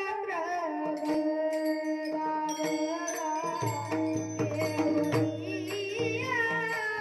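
Marathi devotional song: a voice singing over held instrumental tones and light percussion, with a low steady tone joining about halfway through.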